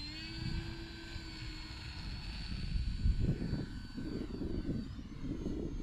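Electric motor and propeller of an E-flite Turbo Timber Evolution RC plane at takeoff power as it lifts off from grass: a steady whine that climbs briefly at the start and then holds. Wind gusts buffet the microphone underneath.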